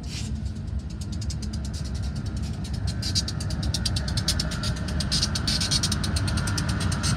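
BNSF diesel freight locomotives passing on the main line: a steady low engine rumble with a rapid, regular clatter that grows louder about three seconds in as the lead units come by.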